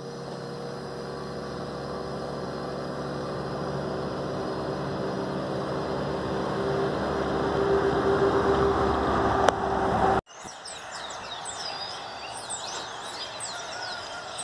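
Road vehicle on a highway, its engine hum and tyre noise growing steadily louder as it approaches, cut off abruptly about ten seconds in. After the cut, birds chirp and call over a quieter background.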